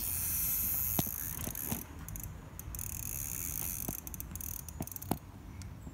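Fishing reel ratcheting under load as a hooked carp of about 8 or 9 pounds is played on a hard-bent rod. The rattle is strongest in the first two seconds, with scattered sharp clicks throughout.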